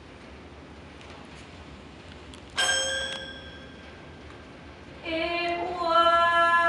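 A single toy piano note is struck about two and a half seconds in and rings out, fading within a second. About five seconds in, a woman starts singing one long held note that steps up slightly in pitch partway through.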